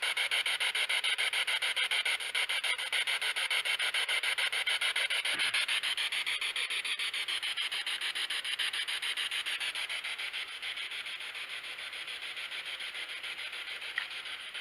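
Spirit box sweeping through radio stations: a steady hiss of static chopped into rapid, even pulses.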